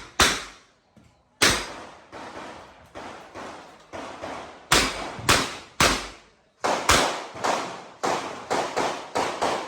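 Revolver gunfire at a practical shooting stage: sharp shots in quick strings, roughly two a second, each crack ringing out briefly. Some shots are much louder than others, with a short lull a little after halfway before a faster run near the end.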